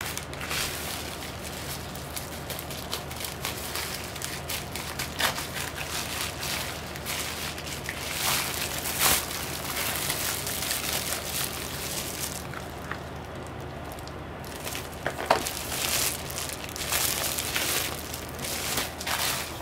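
Plastic poly mailer being cut with scissors and handled, then its bubble-wrap lining crinkling and rustling as a hand reaches inside: irregular crackles and rustles over a steady low hum.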